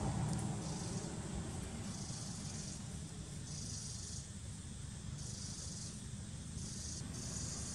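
Insects buzzing outdoors: a high-pitched hiss that comes and goes in pulses about once a second, over a low steady rumble.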